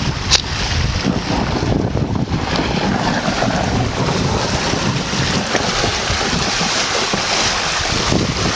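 Steady loud rush of water, with wind buffeting the microphone.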